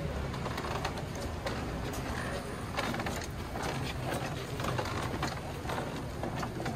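A carved wooden divine palanquin rattling and knocking irregularly as its bearers jolt it on its poles, over a low murmur of people.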